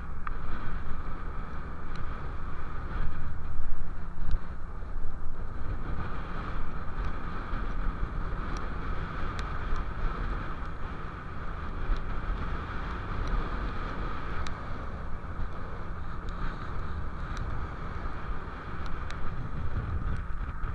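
Strong wind buffeting the microphone over a fishing boat's engine running steadily, with rough sea washing along the hull.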